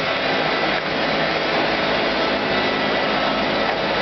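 Steady whirring of a motor driving rushing air, like a fan or extractor, running unchanged without breaks.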